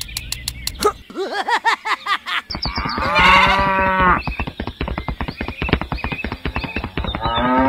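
A cow mooing sound effect: one long call about three seconds in, with short arching calls before it and another call starting near the end, over a fast run of clicks.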